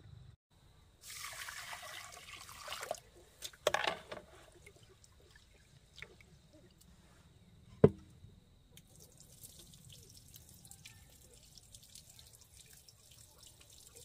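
Rice being washed in an aluminium pot: water pours in for about two seconds, the pot clatters, and a sharp knock about eight seconds in is the loudest sound. Faint trickling and swishing follow as the cloudy rinse water is tipped off.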